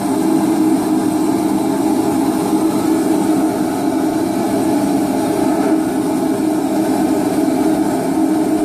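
Homemade three-burner propane forge running, its burners making a steady, unbroken rush of sound with a low hum in it.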